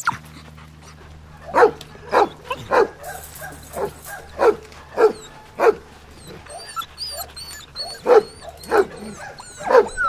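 Labrador retrievers barking: a run of short barks about every half second to second, a pause of about two seconds with faint high chirps, then a few more barks near the end.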